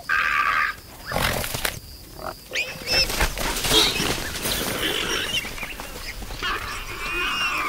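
Warthogs squealing in several short, high calls, with scattered thumps in between: the alarm of the herd as a leopard charges.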